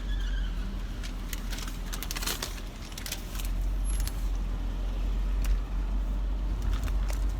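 Inside a car: a steady low engine and road rumble, with scattered light clicks and rattles throughout.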